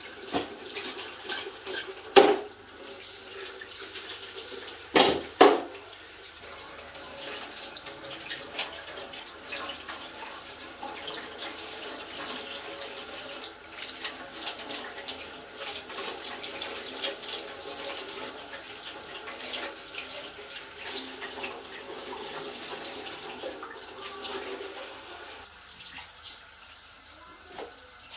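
Tap water running onto a metal tray as raw goat trotters and a goat head are rinsed and scraped by hand, with many small clicks and a few sharp knocks, the loudest about two and five seconds in. The water sound thins near the end.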